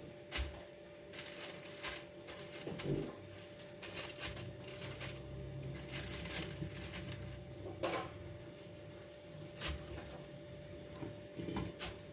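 Kitchen handling noises: light knocks, clicks and rustles at uneven intervals, over a faint steady hum.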